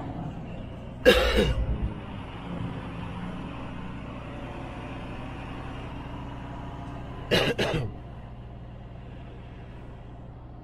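Semi-truck diesel engine running steadily, heard inside the cab as the truck rolls slowly. A man coughs briefly about a second in and again around seven seconds.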